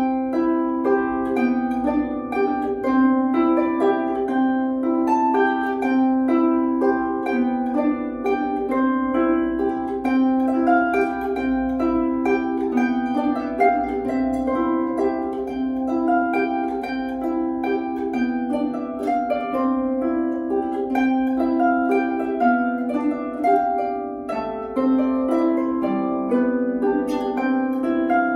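Solo harp, its strings plucked by hand in a steady, unbroken stream of ringing notes: a melody over a repeating lower note.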